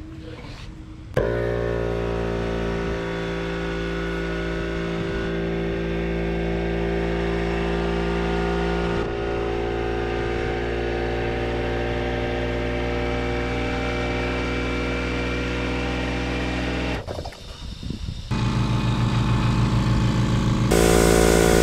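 A Craftsman 1.6 gallon oil-free electric air compressor (3/4 hp, 135 psi) switches on about a second in and runs steadily, motor and pump humming. Near the end it breaks off and a California Air Tools compressor is heard running instead, louder and with a rapid pulsing.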